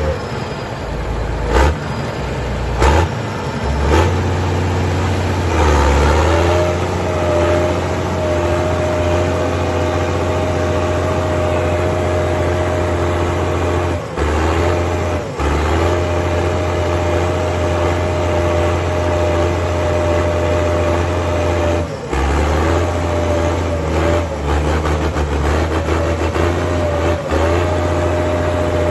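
CBT tractor's Mercedes-Benz diesel engine running steadily with a deep rumble, its note dipping briefly a few times. Three sharp knocks sound in the first four seconds.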